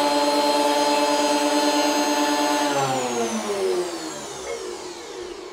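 Combination jointer-planer's motor and cutterhead running free with a steady whine, then switched off a little under three seconds in and winding down, the pitch falling as it slows.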